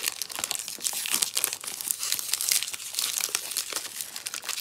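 Clear cellophane wrap crinkling and crackling as it is peeled off a cardboard perfume box and bunched in the hand, in many quick, irregular crackles.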